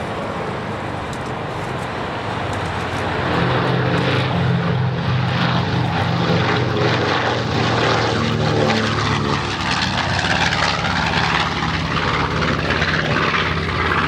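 B-25J Mitchell bomber's twin radial engines running at takeoff power. The engine sound gets louder about three seconds in, then holds at a steady, loud level.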